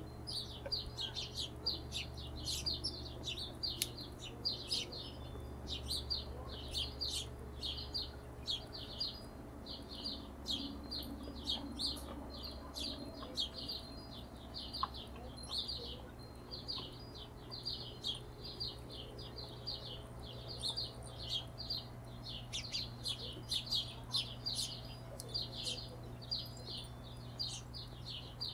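Hummingbirds chittering: a continuous stream of rapid, high, short chips, over a low steady hum.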